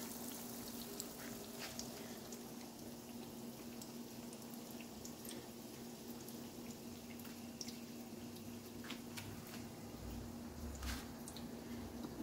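Fish balls and kikiam frying in oil in a wok: scattered crackles and pops over a steady low hum, with a soft low thump about eleven seconds in.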